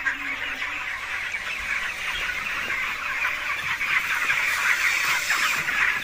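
A large flock of young broiler chickens peeping and chirping together in a dense, steady chorus of overlapping high calls.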